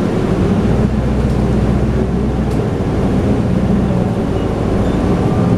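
Engine and road noise of a Toei city bus heard from inside the passenger cabin while it is under way: a steady low engine hum over a broad rumble.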